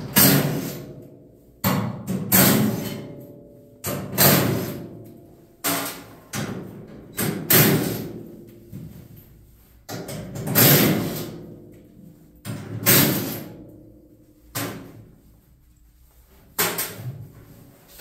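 Repeated loud metallic bangs on the steel door of a 1953 Chevy truck, one every one to two seconds, each ringing and fading over about a second.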